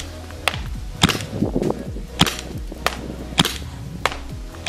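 Poseidon FMG-9 gas blowback airsoft replica fired in semi-auto: about six sharp single shots, each a crack of gas as the bolt cycles, spaced roughly half a second to a second apart.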